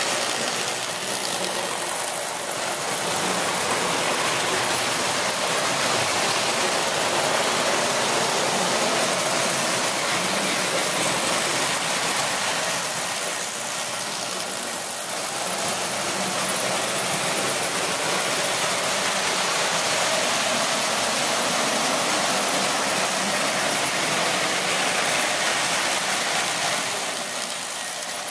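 Marx tinplate toy trains running on three-rail track: a steady whirring and rattling of motors and wheels, easing briefly a few times as the trains move.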